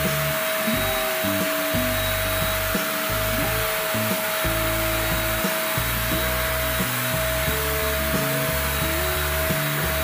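TOTAL electric paint spray gun running steadily, a constant hiss and whine as it sprays wood stain onto a door. Background music with changing bass notes plays along.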